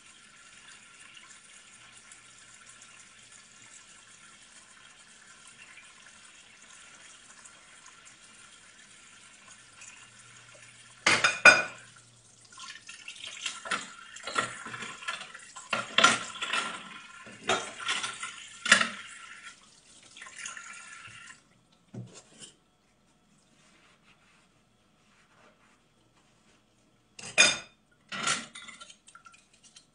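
Tap water running into a kitchen sink, with dishes, glasses and cutlery clattering and clinking as they are washed. The water stops suddenly about two-thirds of the way through, and there is a last clatter of dishes near the end.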